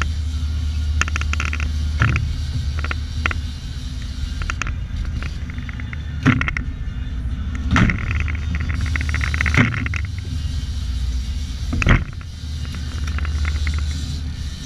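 Boat engine running with a steady low rumble, with about five sharp knocks scattered through it.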